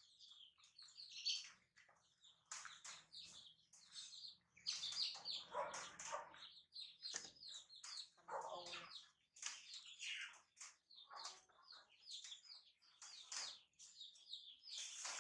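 Rapid, high-pitched chirps and squeaks from a small animal, close together throughout, with a few fuller, lower squeals about a third of the way in and again past halfway.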